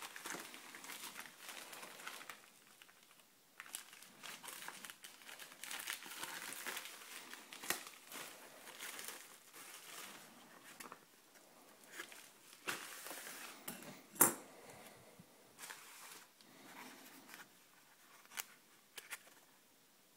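A padded mailer envelope being handled and cut open with scissors: irregular crinkling and rustling of the paper and plastic lining, with tearing, scissor snips and one sharp snap about two-thirds of the way through.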